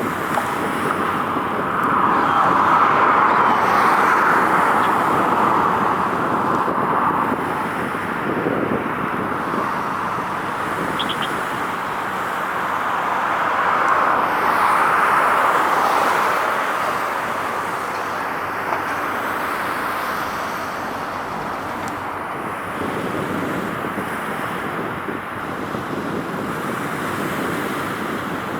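Steady road traffic noise with vehicles swelling past, loudest a few seconds in and again around halfway.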